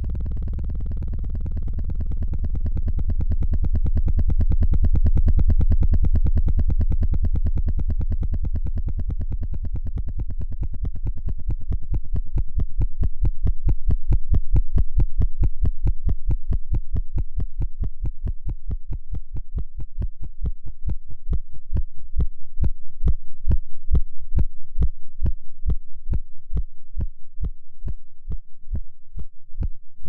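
Synthesized electronic sound: a low, buzzing drone that breaks up, from about a third of the way in, into an even train of low pulses, several a second, swelling and fading slowly in volume. The pulse rate is the charged muon's mean lifetime doubled many times over into a rhythm.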